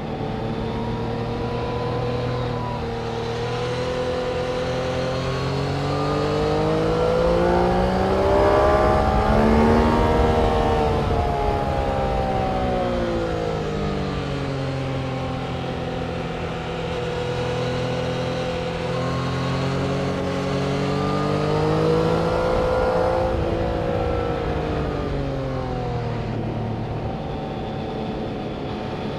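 Track vehicles' engines passing at speed, twice: each time the engine note climbs in pitch and loudness as the vehicle nears, then falls away as it goes by.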